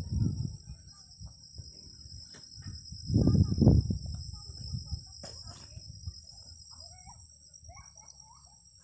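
Outdoor insect chorus: two steady high-pitched trills that never stop. Low rustling bumps break in at the start and, loudest, about three seconds in, and a few short gliding chirps come near the end.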